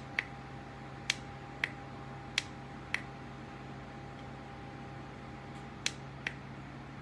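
A BOIROS handheld fan runs with a steady low hum, while seven sharp clicks sound over it: five about half a second to a second apart in the first three seconds, and two close together near the end.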